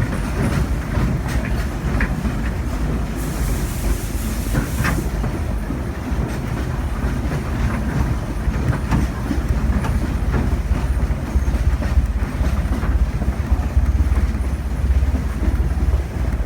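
Steam train rolling along with passengers aboard: a steady low rumble and the clickety-clack of wheels over rail joints, heard from the riding car. A brief high hiss lasts about two seconds, starting about three seconds in.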